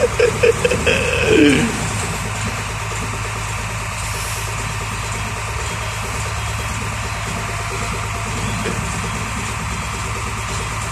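Hino tronton truck's diesel engine idling steadily. Within the first two seconds, a few short, louder pitched sounds ride over it, the last sliding down in pitch.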